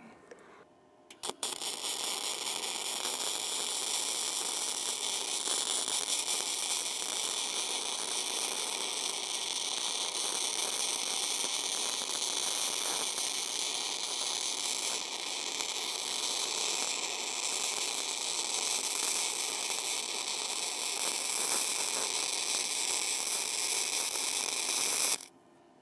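Self-shielded flux-cored arc welding: the wire arc gives a steady crackling hiss. It catches about a second in after a brief stutter and cuts off suddenly near the end.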